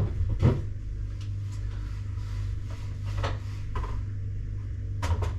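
Groceries and bottles being moved about in an open refrigerator: a few scattered knocks and clunks as items are set on the shelves, with a cluster near the end, over a steady low hum.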